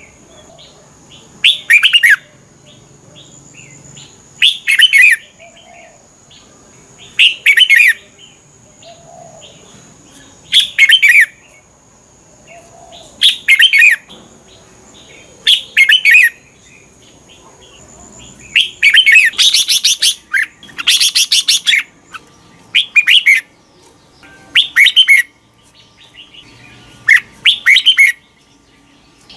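Red-whiskered bulbul singing: short, loud, warbling phrases repeated every two to three seconds, with a longer, busier run of notes past the middle.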